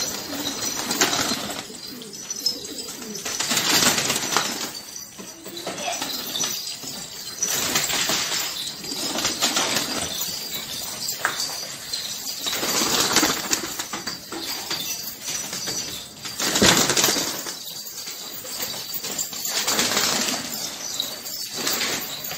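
Domestic pigeons in a loft flapping their wings in repeated flurries every second or two, the strongest about three-quarters of the way through, with some cooing.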